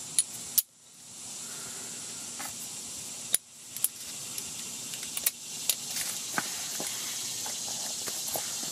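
Scattered sharp metallic clicks and clinks of a wrench working on the oil drain plug under the truck, over a steady hiss.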